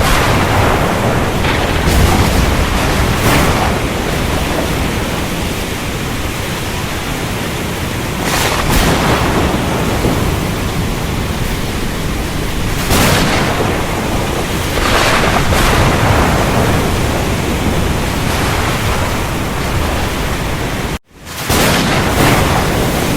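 Steady heavy rain with low thunder rumbling and hissing surges every few seconds. The sound cuts out for an instant near the end.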